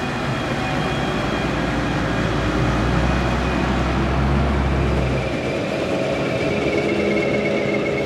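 Engines of a Fendt tractor towing a Krone loader wagon and a Claas Jaguar 860 forage harvester, driving in transport with the maize header folded. A heavy low engine drone dominates, then drops away about five seconds in, leaving a steadier, higher-pitched machine hum and whine that grows stronger.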